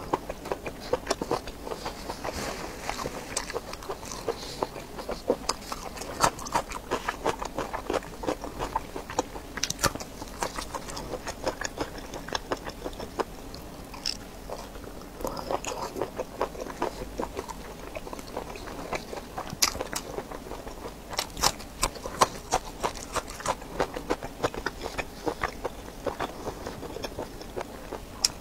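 Close-miked biting and chewing of a curled ring sausage: a dense, irregular run of short sharp mouth clicks and bites.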